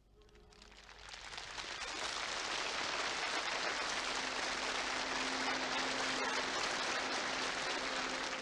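A huge open-air crowd applauding. The applause swells over the first two seconds and then holds steady.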